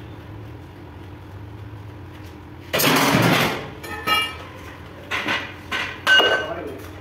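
Welded steel-tube frames being handled: a loud metallic clatter about three seconds in, then several shorter clanks, some of them ringing.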